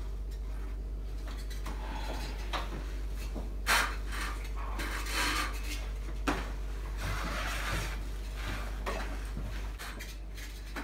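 Rattling, scraping and knocks from a small child's bicycle being grabbed and climbed onto on a tiled floor, with the loudest knock a little under four seconds in. A steady low hum runs underneath.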